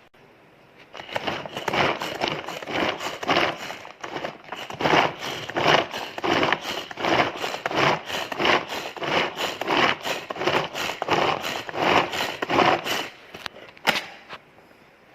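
Ganesh hand-pull vegetable chopper being pulled by its cord again and again, its blades spinning and rattling through coarse onion chunks in the plastic bowl: rhythmic whirring strokes, about two a second. The strokes stop about thirteen seconds in, when the onion is chopped.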